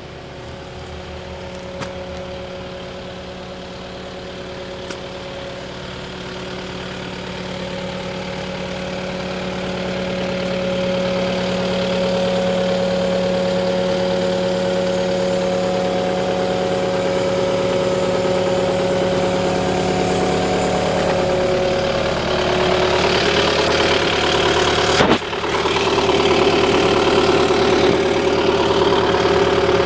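An engine running steadily, growing louder over the first ten seconds or so. Its note changes about twenty-two seconds in, and there is a brief drop about twenty-five seconds in.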